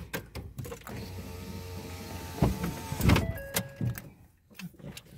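Car power window motor running for about a second and a half, stopping with a click, followed by a louder thump about three seconds in.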